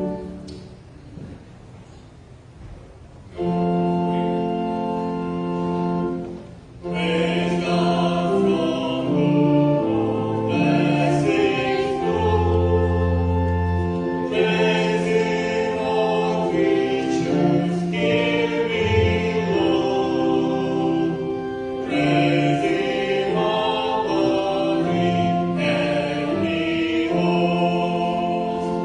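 Church choir singing a hymn with organ accompaniment. After a brief lull near the start, the organ comes in with long held chords about three seconds in, and the choir joins a few seconds later.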